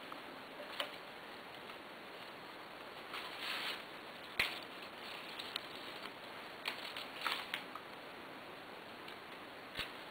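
Peony stems and leaves being handled: faint rustling with scattered short clicks, the sharpest about four seconds in.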